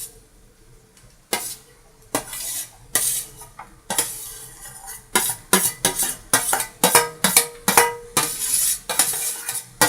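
A spoon knocking and scraping against a cooking pan as coloured pulao rice is spooned in and stirred through the vegetables. There are a few separate knocks at first, then quicker repeated scrapes from about four seconds in.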